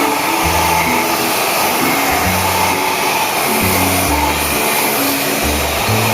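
Lifepro 2-in-1 vacuum cleaner running steadily with a loud, high whirring motor, a cover still fitted inside it blocking the suction. Background music with a stepping bass line plays over it.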